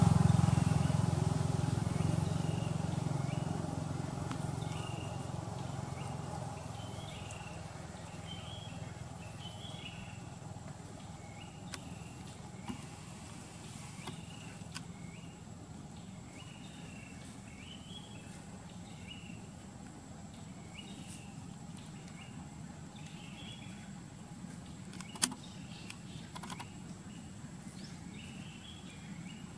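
A motor vehicle's engine rumble fades away over the first several seconds. After it, short chirping calls repeat every second or so over a steady high insect whine, with one sharp click near the end.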